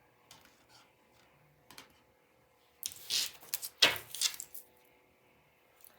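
A few short clinks and rattles of small hard objects being handled, loudest about three to four and a half seconds in, with a couple of faint ticks before.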